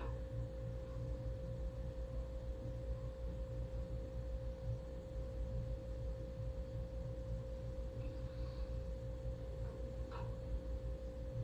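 Steady hum: one unchanging mid-pitched tone over a low rumble, with no rise or fall.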